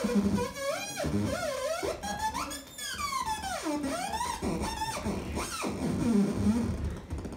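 A homemade light-reactive synthesizer circuit on a CD-sized circuit board, plugged in, making a gritty electronic tone whose pitch swoops up and down as the light falling on its two light sensors changes.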